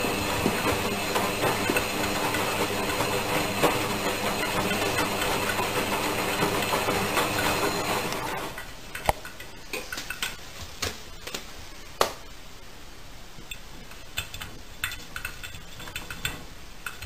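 Front-loading washing machine running, a steady motor hum with the drum churning, that stops about eight seconds in. After it stops come scattered light taps and clicks as a cat paws at the machine's glass door.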